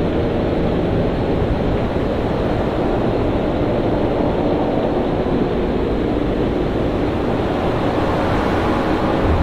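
Storm at sea: a steady, heavy wash of waves and wind with a deep rumble underneath.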